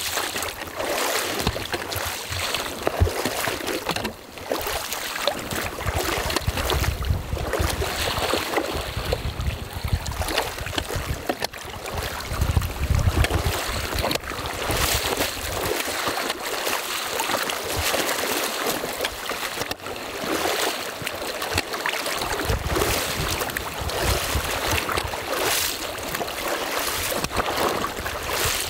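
Water rushing and sloshing as someone wades through a shallow river, with clothing rubbing close against the microphone.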